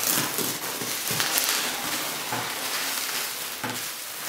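Hands rummaging through polystyrene packing peanuts and pulling foam wrap in a cardboard box: a continuous crackling rustle.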